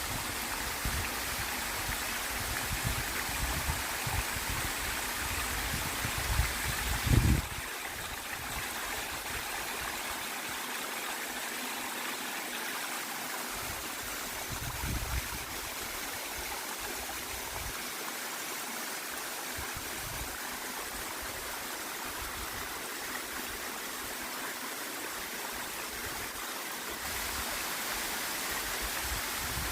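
Waterfall and stream water rushing steadily, a dense even hiss of falling and flowing water. Low rumbles come and go under it in the first seven seconds, the loudest just past seven seconds, and once more briefly around fifteen seconds.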